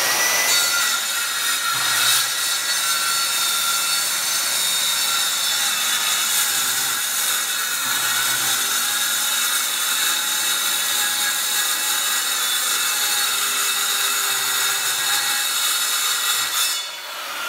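Corded circular saw with a wood-cutting blade running steadily as it cuts through a sheet of high-density polyethylene. Near the end the saw is let off and its whine falls as the blade spins down.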